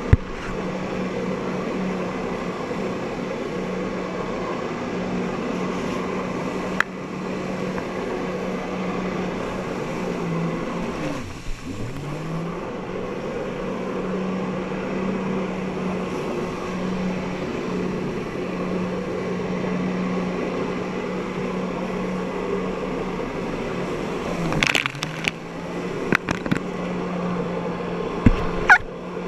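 Personal watercraft engine running steadily at high revs to power a flyboard, under a hiss of water spray. Its pitch dips and climbs back about eleven seconds in and again near the end, and sharp knocks, the loudest sounds here, come at the start and in a cluster near the end.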